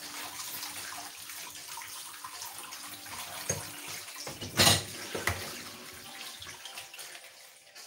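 Tap water running steadily into a kitchen sink as salad leaves are rinsed under it, with a brief louder splash about four and a half seconds in.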